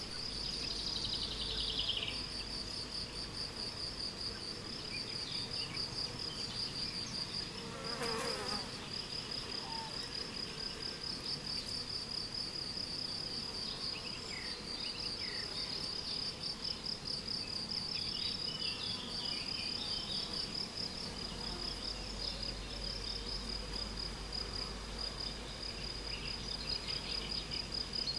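Crickets chirping in a steady, rapid pulsing trill, with short bird calls over it: a descending trill in the first couple of seconds and scattered chirps later. A brief, sharper sound comes about eight seconds in.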